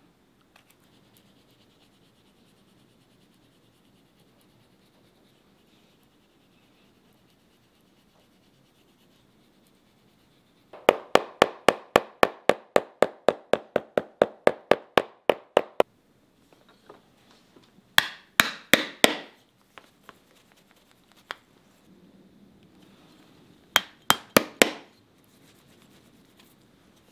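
Steel shoemaker's hammer striking a leather shoe sole to hammer it down. It strikes in a fast, even run of about five blows a second for some five seconds, then in two short runs of a few blows each.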